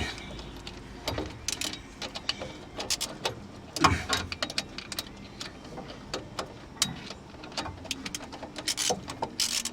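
Rapid, irregular clicking of a 1/4-inch drive socket ratchet working bolts on a truck's front driveshaft, with a few knocks of metal tools.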